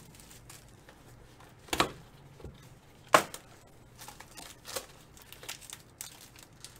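Clear plastic wrapping crinkling and rustling as hands pull it off a trading-card box. Two sharp crackles stand out, the louder about three seconds in, with lighter rustles after.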